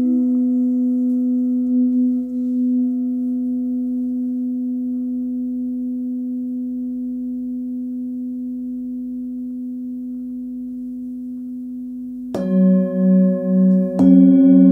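Hand-forged singing bowl ringing with one long, slowly fading tone after a mallet strike. About twelve seconds in, a lower-pitched bowl is struck with a felt-tipped mallet, its tone pulsing slowly, and a second and a half later another bowl is struck on top of it.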